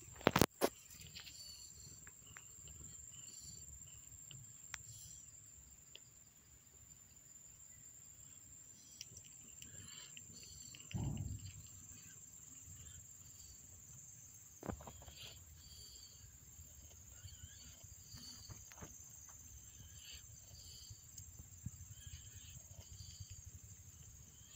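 Mother cat purring, a soft steady low rumble, while two young kittens nurse against her. There are a few sharp clicks just after the start, a short low sound about eleven seconds in, and a faint high whine throughout.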